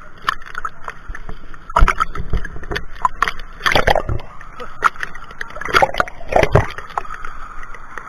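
Sea water sloshing and splashing against a camera held at the surface, with a few sharp splashes, and gurgling as the camera dips under water about four seconds in.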